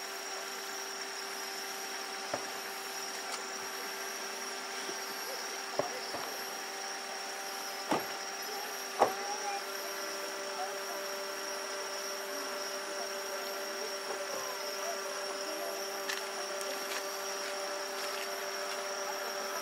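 Distant aerial firework shells bursting: four short, sharp reports, the loudest about nine seconds in. Behind them runs a steady hiss with several thin, continuous tones.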